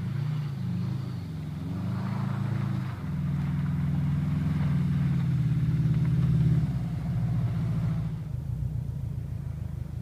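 Subaru Impreza's flat-four engine revving on and off the throttle while the car slides through snow. The note climbs and holds at its loudest in the middle, then drops back about seven seconds in.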